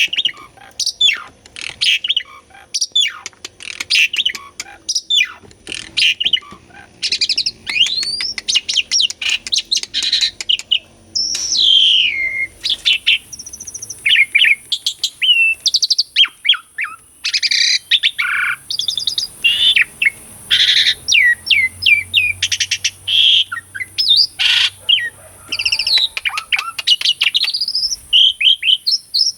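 Pied starling (jalak suren) in full, energetic song: a rapid, varied run of whistles, rising and falling sweeps, chirps and clicks with hardly a pause.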